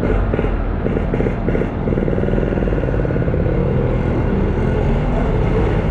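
Motor vehicle engine running steadily, with a fast, even pulsing.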